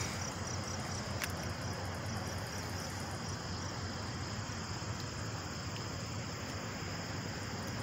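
Crickets chirping steadily at night, a high, evenly pulsing trill over a faint low background hum.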